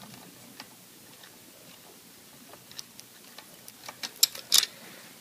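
Small metallic clicks and ticks of a hex key turning in the pitch adjustment bolt of a Max-Prop Easy feathering propeller hub as the bolt is unscrewed. The clicks come more often and louder in the second half, with a few sharp clinks near the end as the bolt works free.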